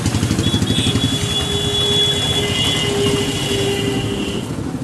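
Motorcycle engine running at low revs in traffic, with a fast, even low pulsing. A steady high-pitched tone comes in about a second in and holds for roughly three seconds before cutting off near the end.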